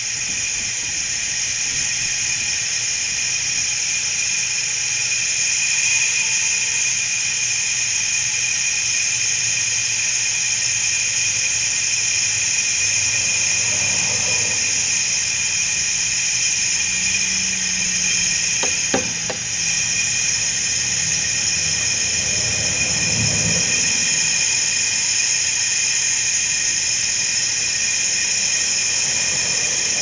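Compressed air hissing steadily from an air nozzle into a homemade soda-bottle smoker taped to a diesel truck's tailpipe, pushing cigar smoke through the exhaust for a smoke test to find an exhaust leak. The hiss is high-pitched and unbroken.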